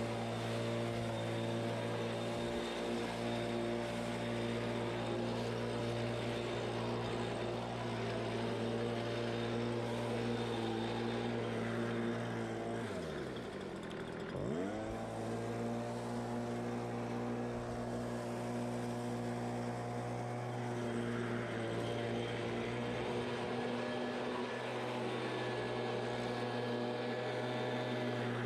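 Stihl handheld two-stroke leaf blower running steadily at high throttle. A little past halfway the throttle is let off: the engine note drops sharply toward idle, then climbs straight back to full speed.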